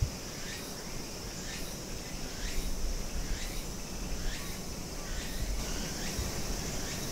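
Outdoor insect chorus: a steady high drone with a swooping call that repeats about once a second. There is a short knock right at the start, and a low rumble of wind on the microphone through the middle.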